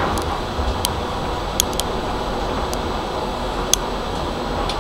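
Interior of an old high-floor tram rolling slowly along street track: a steady running hum, with scattered sharp clicks.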